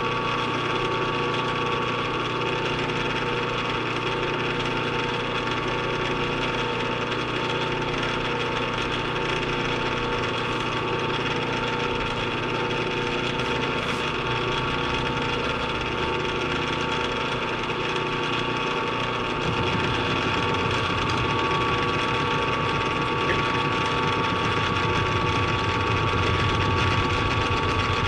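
Milling machine running with an end mill cutting the workpiece, a steady machine whine. About twenty seconds in, a deeper low rumble joins and it gets slightly louder.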